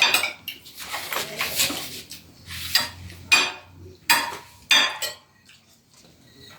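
Spoons clinking and scraping against plates during a meal, about six or seven sharp, ringing clinks at uneven intervals, quieter for the last second or so.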